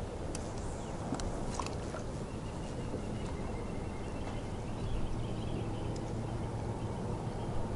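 Steady outdoor background of a boat sitting on open lake water, a wash of noise with a low hum. A few light clicks come in the first two seconds.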